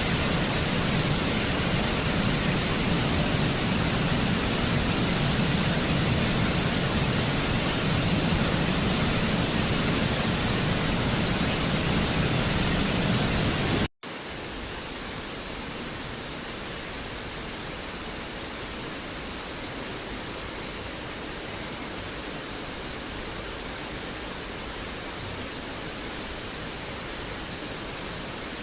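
Waterfall rushing: a steady, even wash of falling water. About halfway through it cuts off abruptly and resumes as a quieter stretch of the same rushing.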